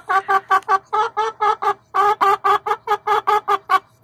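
Black Star hen clucking in fast runs of short calls, about six a second, with two brief breaks.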